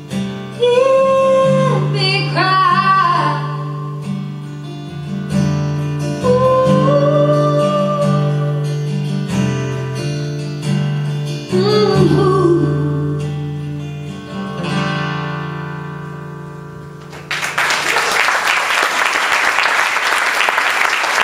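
A woman singing a few long held phrases over a strummed acoustic guitar, the last chord fading away to end the song, then audience applause for the last few seconds.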